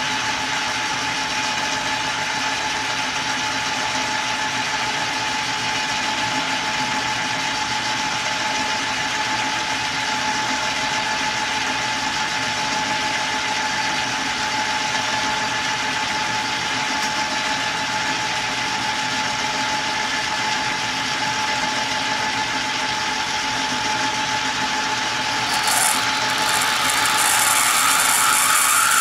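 Small lathe running with a steady whine while a cutting tool turns a brass crown-wheel blank. About three-quarters of the way through, a louder, higher hiss comes in.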